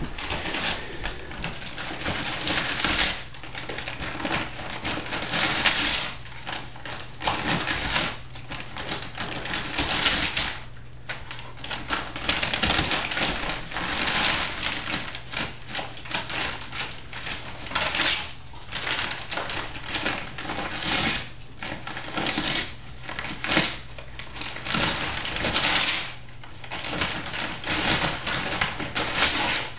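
Bernese Mountain Dog ripping and chewing a brown paper bag: irregular bursts of paper crinkling and tearing, over and over, with short pauses between.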